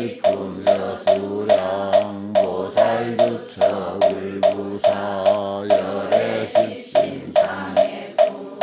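A Korean Buddhist congregation chanting in unison. The chant is kept in time by a struck moktak (wooden fish) at a steady beat of a little over two knocks a second.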